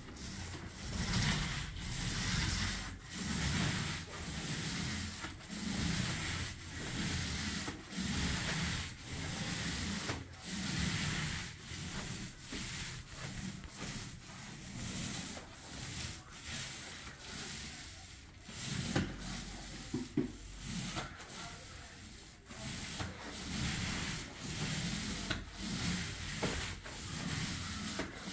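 Paint roller on an extension pole rolling white paint across a ceiling: a rhythmic swishing rub, about one stroke a second, with a couple of sharp clicks about two-thirds of the way in.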